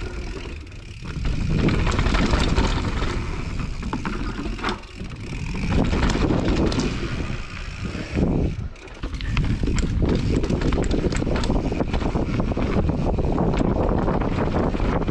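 Mountain bike riding down a forest trail: knobby tyres rolling over wooden boardwalk planks and then packed dirt, with many quick rattles from the bike. Wind buffets the camera microphone throughout.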